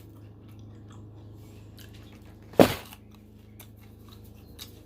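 Close-up chewing of breaded fried shrimp, with faint crackles and one short, loud crunch about halfway through as the tail is bitten through. A steady low hum runs underneath.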